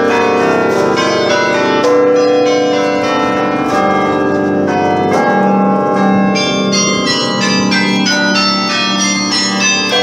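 The carillon of the Belfry of Bruges playing a tune: many tower bells struck in quick succession, with quick high notes sounding over long-ringing lower bells.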